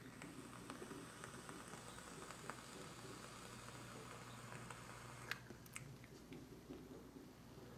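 Faint crackling and sizzling from an e-cigarette dripping atomizer's coil as vapour is drawn through it for about five seconds, ending with a sharp click.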